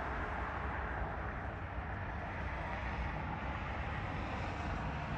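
Steady outdoor background rumble and hiss with a heavy low end and no distinct events, the kind of sound distant engine noise or wind on the microphone makes.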